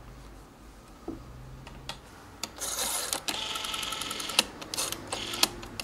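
Rotary dial of a candlestick telephone being turned and spinning back, a whirring mechanical rattle with a rapid run of even clicks. A few sharp single clicks come earlier and in between.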